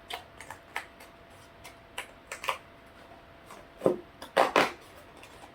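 Snack packaging being opened by hand: scattered crinkling crackles and clicks, with a louder burst of crackling about four seconds in.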